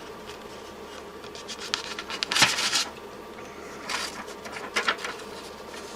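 Light clicks and rustling from handling gear on a workbench, loudest about two and a half seconds in and again around four seconds, over a steady low electrical hum.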